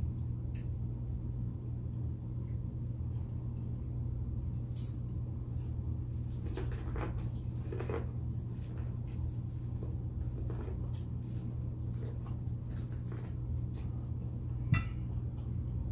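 Eating sounds: chewing and smacking with scattered light clicks of cutlery on a plate, over a steady low hum. One sharper click stands out near the end.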